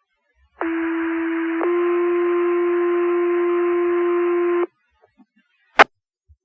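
Fire department radio two-tone page: one steady tone for about a second, then a step to a slightly higher second tone held for about three seconds, which sets off the volunteer firefighters' pagers. A single sharp radio click follows about a second after the tones stop.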